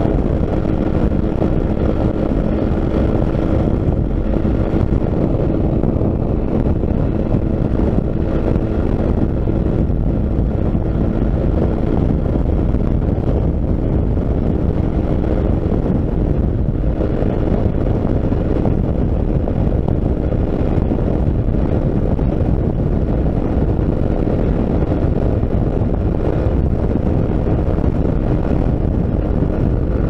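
Motorcycle cruising at steady highway speed: wind rushing and buffeting over the microphone, with a steady engine drone underneath.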